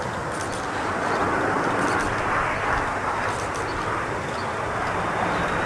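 Airbus A330-200 twin-engine jet airliner on final approach with its landing gear down: a steady rushing jet-engine noise that slowly grows louder as it nears.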